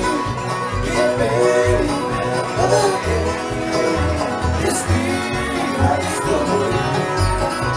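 Bluegrass band playing live with upright bass, banjo, guitar and fiddle. The bass plucks a steady pulse of low notes under gliding fiddle lines.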